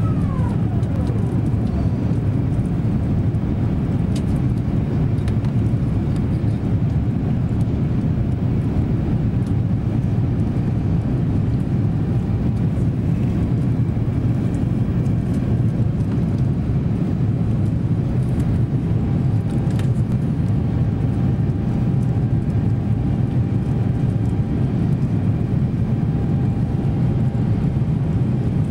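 Steady cabin noise of an Airbus A350-900 in its climb, a low drone from its Rolls-Royce Trent XWB engines and the airflow. A high whine glides down in pitch and dies away in the first second.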